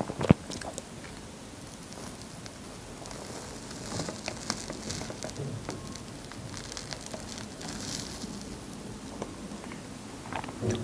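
Plastic knife slicing down through a layered crepe cake: soft, moist crackling with scattered faint ticks as the thin crepe layers and cream give way. There is a sharp tap just after the start.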